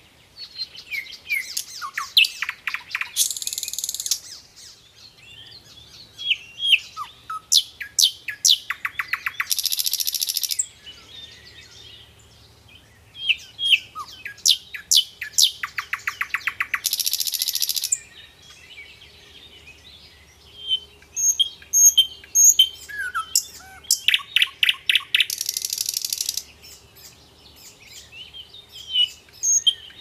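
Bird calls: sharp high chirps and short down-slurred whistles, broken about every seven seconds by a rapid buzzing trill lasting a second or two.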